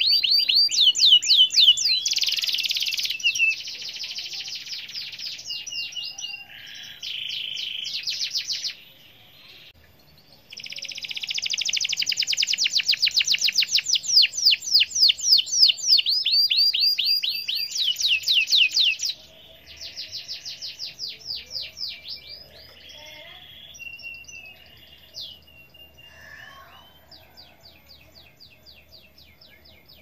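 Domestic canary in full song: long runs of fast repeated notes and rolling trills. A short pause comes about a third of the way in, then another long loud trill; the last third is softer, with sparser phrases.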